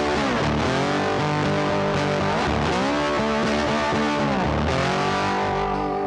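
Background music: distorted electric guitar with bending, gliding notes over a steady bass.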